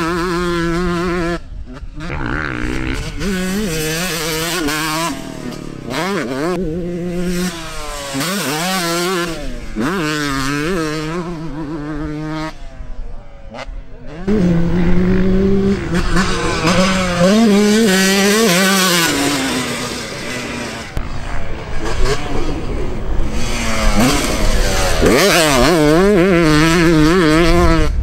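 2001 Yamaha YZ125 two-stroke engine, ported and set up at 134cc, ridden hard: the revs climb and fall again and again through the gears, with the throttle cut off briefly several times.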